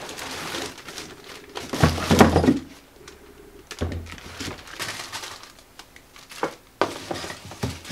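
Plastic wrapping crinkling and cardboard rustling as a heavy magnetic drill is lifted from its box and set down on a wooden bench, with a dull thump about two seconds in and another about four seconds in, then a few light knocks.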